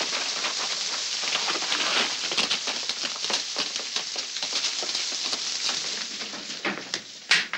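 Heavy rain falling steadily, a dense hiss full of fine spatters, which drops away about six and a half seconds in. A single sharp knock sounds just before the end.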